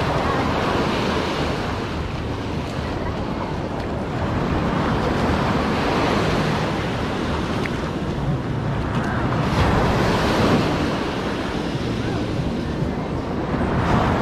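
Ocean surf breaking on the beach, a steady rush that swells and fades every few seconds, with wind buffeting the microphone.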